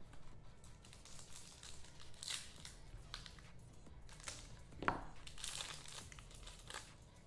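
Trading-card packs being torn open and their wrappers crinkling in scattered bursts, with one louder crackle about five seconds in.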